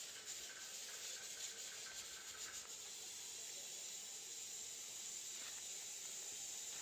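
Faint steady hiss of room tone, with faint soft rustling and clicks during the first couple of seconds.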